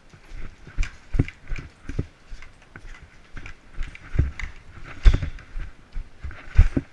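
Footsteps on the ground, irregular heavy thumps, with the rustle of clothing and gear between them.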